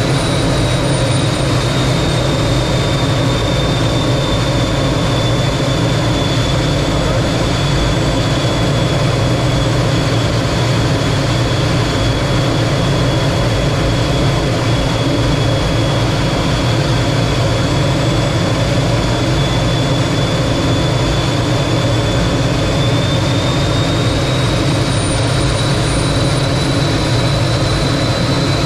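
T-33 jet trainer's turbojet running steadily in flight: a constant loud rush with a low hum and a high turbine whine. The whine sags a little in pitch for most of the stretch, then rises again near the end.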